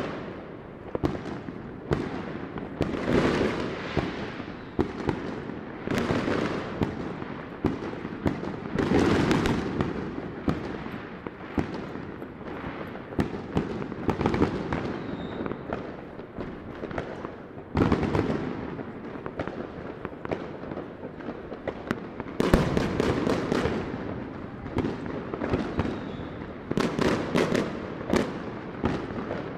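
Fireworks and firecrackers going off all around: a constant crackle of sharp pops, with louder booming bursts every few seconds, one of the strongest a little past two-thirds of the way through.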